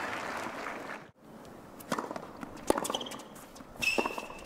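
Crowd applause fading out, cut off abruptly about a second in. Then a few sharp knocks of a tennis ball bounced on the hard court before a serve, and a short high squeak near the end.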